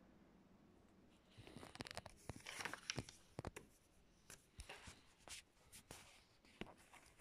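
Sheets of paper being handled and shifted, rustling in an irregular run of short crackles and taps that starts about a second in and thins out near the end.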